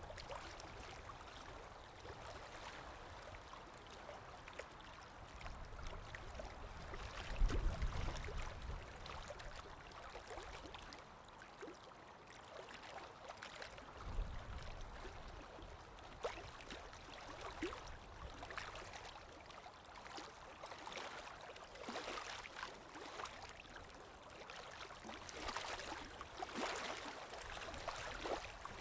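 Water sound-effect track: a stream trickling and gurgling, with a couple of deeper swells of water.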